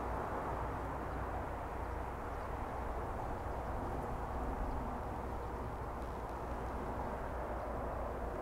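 Steady low rumble with a hiss, even throughout and with no distinct events.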